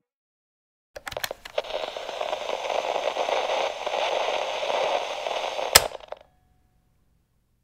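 Crackling, hissing static-noise effect with scattered clicks, starting about a second in and cutting off after about five seconds, with one sharp loud click just before it ends.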